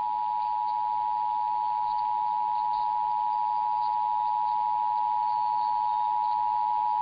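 Emergency Alert System attention signal: two steady tones sounded together, with no change in pitch. It is the alert tone that introduces the voice message of an EAS test or alert.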